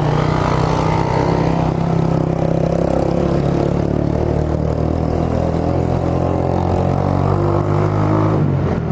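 Suzuki GSR 150i's single-cylinder four-stroke engine running at a fairly even speed through an aftermarket Roncar SS oval exhaust, a deep, steady exhaust note. The note changes briefly near the end.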